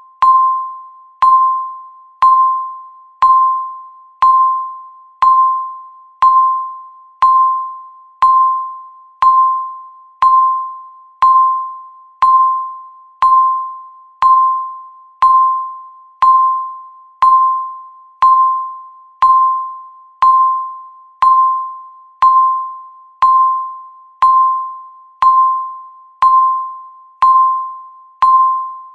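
Countdown timer beeping once a second: a single clear tone that starts sharply and fades away before the next beep.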